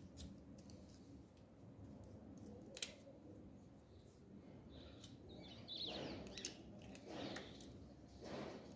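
Faint work noises from taking apart an e-bike battery pack: a single sharp click about three seconds in, then scraping and rasping from about halfway through.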